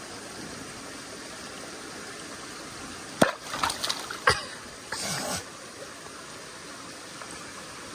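Steady rushing of stream water. Between about three and five and a half seconds in come a few splashes and knocks as a utensil is dipped into the water to try to scoop up fish.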